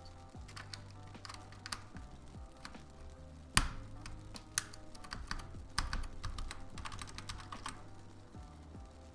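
Typing on an 80% mechanical keyboard with newly fitted keycaps, giving a thocky sound: irregular keystrokes, with one much louder stroke about three and a half seconds in. Soft background music runs underneath.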